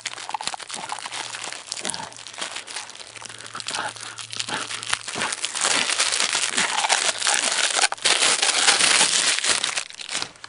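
Close handling noise of hands working a spool of string, picking at its end: dense crinkling and rustling, louder from about halfway through.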